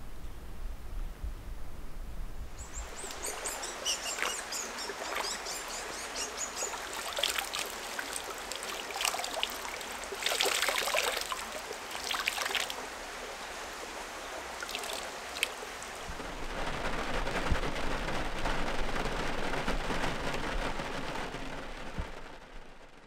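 Water trickling in a small creek, with louder splashing as water is scooped up from it. Steady rain falling over the last several seconds.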